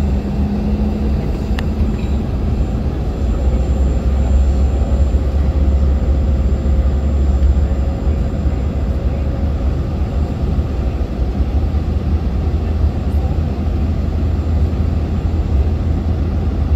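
Steady airliner cabin noise on the approach to landing: a deep, even rumble of the jet engines and rushing air heard from inside the cabin.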